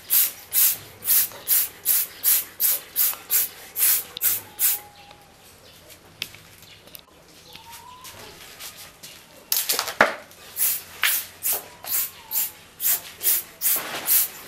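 Repeated short hissing bursts, about two or three a second. They stop for about five seconds in the middle and resume after one louder burst.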